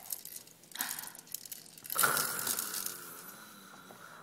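A toddler imitating snoring: a short raspy snort, then a louder, longer rasping snore-like breath with a faint whistle that fades away.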